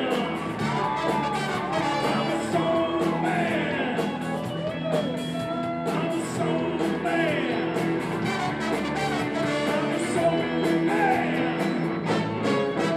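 Live band playing upbeat rock-and-roll with a singer and a steady drum beat.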